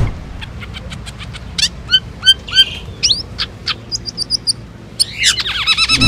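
Asian glossy starling chattering: a string of sharp chirps, clicks and short rising whistles, with a run of quick high notes about four seconds in and a fast tumbling series of notes near the end.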